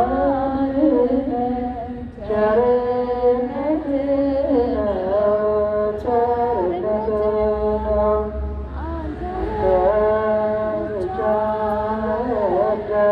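Voices singing an Ethiopian Orthodox hymn (mezmur) in long, slow, chant-like phrases, with a brief break about two seconds in.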